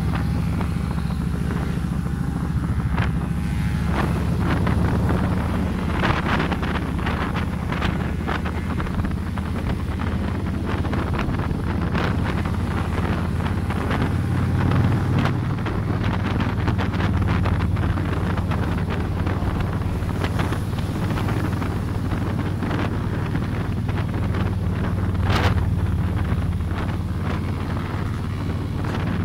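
Motorcycle engine running steadily at cruising speed, heard from on the moving bike as a low drone, with wind buffeting the phone's microphone in irregular gusts.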